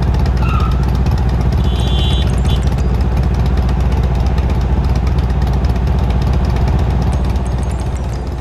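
Kawasaki Ninja 300's parallel-twin engine idling steadily, heard close up from a camera mounted on the bike's tank.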